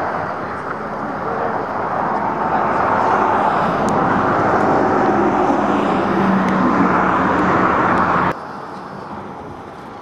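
Motor vehicle noise, engine and tyres, swelling steadily louder over several seconds and then cutting off suddenly about eight seconds in.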